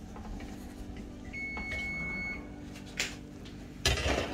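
Electronic oven timer beeping: one steady high tone lasting about a second, the oven signalling that the baking time is up. Near the end a knock and then a louder clatter as the metal Bundt pan is set down on a wire cooling rack, over a steady low hum.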